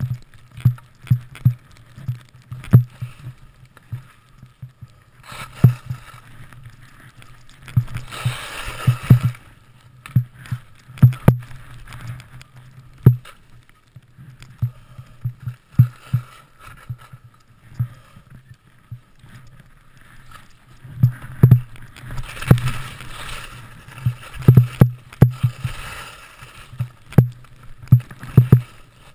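Skiing fast through deep, bumpy powder, heard through the skier's own worn camera: irregular knocks and thuds from each jolt of the ride, a few a second. Twice there is a longer hiss of skis and snow spray, about eight seconds in and again from about twenty-one to twenty-six seconds.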